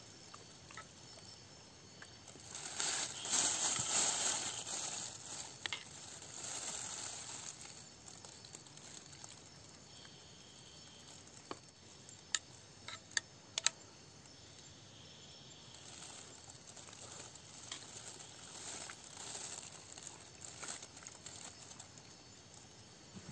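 Crinkling and rustling of food being handled by hand over an aluminium mess tin, loudest a few seconds in, with a few sharp clicks near the middle.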